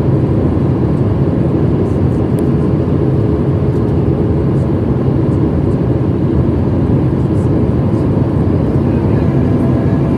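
Steady cabin noise of a Boeing 737-700 in flight, heard inside the cabin at a window seat over the wing: the drone of its CFM56 turbofan engines mixed with rushing airflow, with a few faint steady tones.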